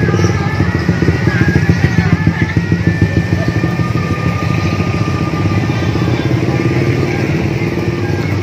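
Motor scooters and small motorcycles passing close by in a steady stream of traffic, their engines running, with a pickup and a minivan among them.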